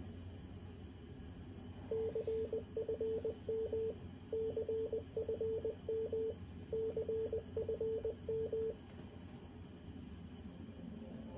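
Morse code (CW) practice tone: a single steady mid-pitched beep keyed on and off in dots and dashes. It starts about two seconds in and runs for about seven seconds in three short runs of characters with brief pauses between them.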